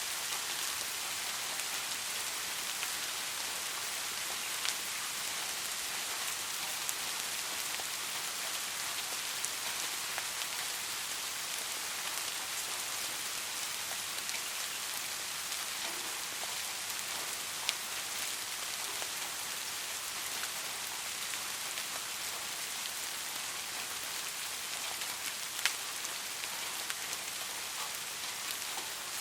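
Steady light rain: an even patter of drops hissing on a surface, with now and then a single louder drop clicking out of it.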